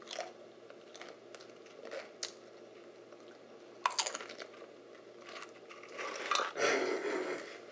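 Someone chewing and crunching crisp food, heard as scattered small crackles and clicks, with a longer, denser crunching rustle about six seconds in.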